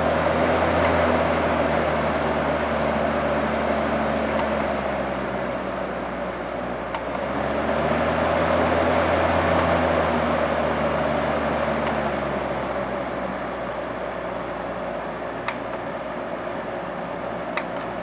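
Lasko 3542 20-inch Cyclone fan running, a steady rush of air over a low motor hum, stepped down in speed so the rush eases and settles lower in the second half. A few light clicks come from its control buttons.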